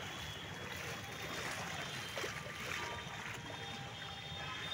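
Floodwater sloshing and splashing as someone wades through it, with a splash at each step.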